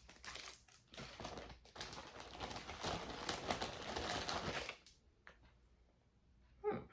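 Wrapping crinkling and rustling with small clicks as jewelry is unwrapped and handled by hand, for about five seconds, then stopping.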